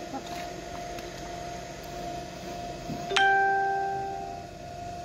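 A single bell-like chime rings out about three seconds in and fades over a bit more than a second, over a steady hum.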